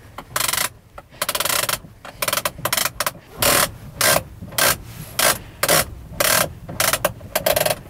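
Elevator trim wheel of a 1957 Cessna 182A being rolled by hand, which moves the whole horizontal stabiliser. Each stroke gives a short rasping whir: a few irregular strokes at first, then an even run at almost two strokes a second.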